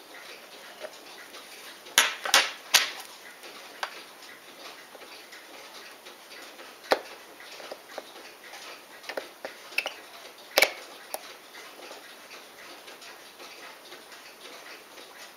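Small steel watchmaker's tools clicking and tapping against a disassembled Poljot Signal watch movement in its holder, in irregular sharp clicks: three close together about two seconds in, a few more scattered after, and the loudest one past the middle.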